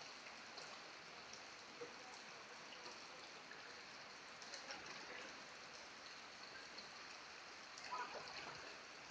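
Heavy rain falling on a flooded street with runoff water rushing along the road, a faint steady hiss with scattered splashes.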